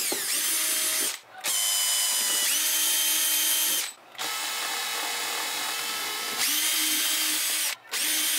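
Handheld power drill drilling holes in an ammo box, its motor whining in four runs with short pauses between them. The pitch sags at the start of some runs, then rises again as the bit cuts.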